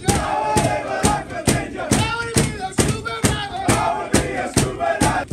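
A group of rugby league players chanting together in a celebration chant, beating time with loud hand claps about twice a second.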